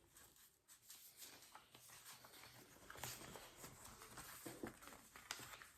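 Near silence with faint rustles and small ticks of a sheet of paper being folded, a little busier in the second half.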